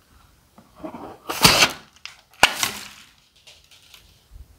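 A sequin-filled balloon handled over a tray of clear slime: a rustling swell about a second in, then one sharp snap a second later.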